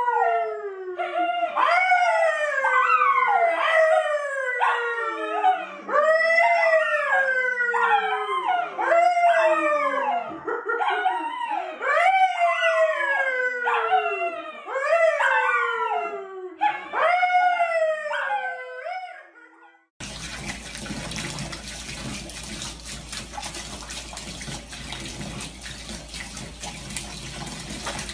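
A man and a small curly-coated brown dog howling together, a string of long falling howls one after another. About twenty seconds in it cuts to a steady rush of tap water running into a bathtub.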